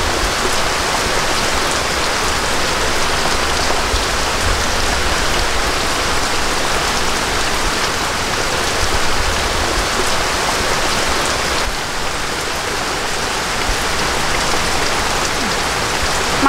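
Rain falling steadily, a dense even hiss that continues without a break.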